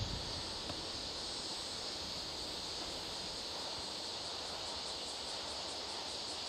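Insects chirping outdoors: a steady high trill, with a higher, evenly pulsed chirping at about four a second coming back near the end.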